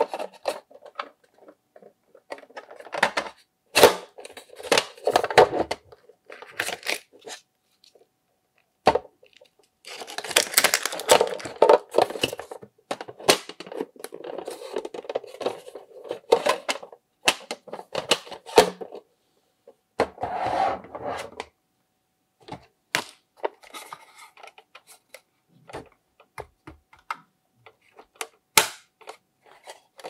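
Hard plastic toy kitchen appliances being handled: the doors and drawer of a toy fridge, microwave and oven opening, snapping shut and clattering in a run of sharp clicks and knocks, with a longer stretch of rustling and scraping from about ten seconds in.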